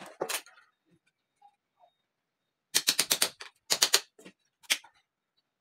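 A hammer tapping small nails into the wooden frame of a wire-mesh sand sieve, fixing the mesh in place. The taps come in quick bursts of several strikes: one just after the start, two fuller bursts past the middle, and a single tap near the end.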